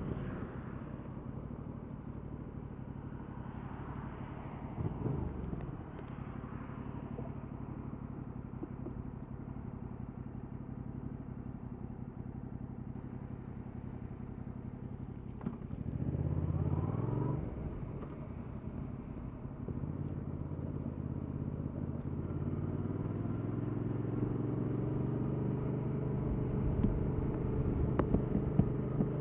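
Yamaha MT-07's 689 cc parallel-twin engine running at low, steady revs, with a short rise in revs about halfway through and revs climbing slowly toward the end.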